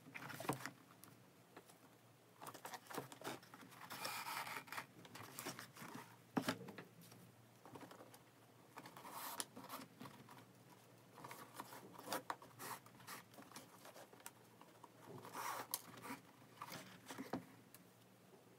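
Faint, irregular swishes and light clicks of a shoelace being pulled through the eyelets of a Vans sneaker as it is laced, with handling rubs of the shoe.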